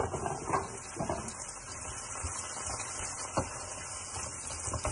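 Chopped onions frying in a pan with a steady sizzling hiss. Several sharp knocks of a knife, cutting board and wooden spatula against the pan, the loudest right at the start.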